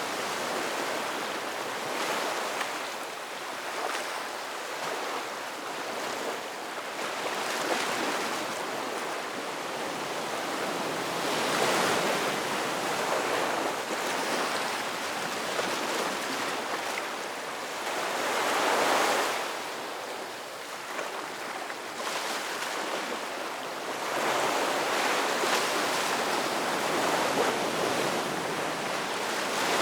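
Ocean surf: waves breaking and washing up a sandy beach in a continuous hiss that swells louder with each breaker, most strongly about twelve and nineteen seconds in and again in the last few seconds.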